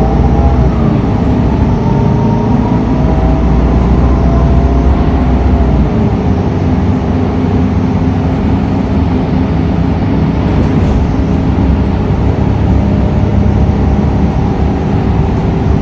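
City transit bus heard from inside the cabin while driving: a steady engine and road rumble with a faint drivetrain whine.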